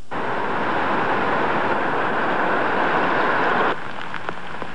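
Fast-flowing floodwater rushing past, a steady loud hiss of moving water that cuts off abruptly near the end, leaving quieter noise with a few faint clicks.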